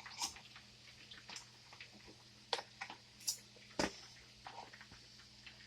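Scattered light clicks and taps of a kitchen knife and utensils working on food, with a fuller knock a little under four seconds in, over a faint steady hum.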